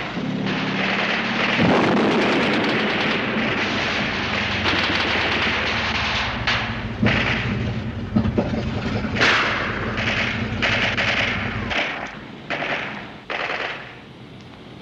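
Battle sound effects: repeated bursts of machine-gun and rifle fire over a steady low rumble. The rumble cuts off about twelve seconds in, and a couple of last shots follow.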